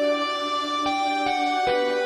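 Music from a rock band's demo recording: a quiet passage of sustained, ringing chords with no drums. The notes change a few times in the second half.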